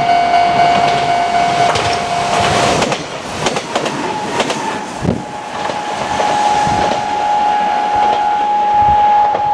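Level-crossing alarm ringing with a steady repeated tone while a Kintetsu Minami Osaka Line train passes over the crossing, its wheels clacking over the rail joints from about two seconds in. About three seconds in, the alarm's tone moves slightly higher.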